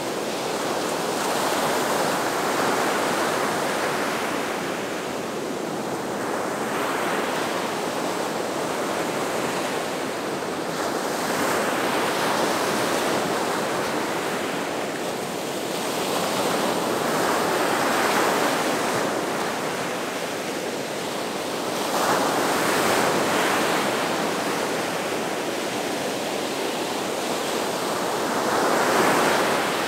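Gulf of Mexico surf breaking on the beach in a continuous wash, swelling with each wave every few seconds, about seven surges in all.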